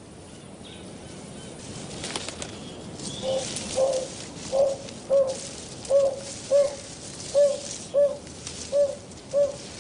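Narina trogon calling: a series of low, soft hoots, about two a second, that starts about three seconds in and grows louder, over a steady background hiss.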